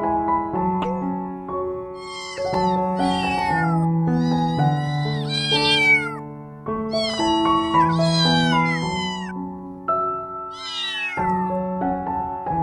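Kittens mewing again and again in high, thin cries that fall in pitch, over background piano music.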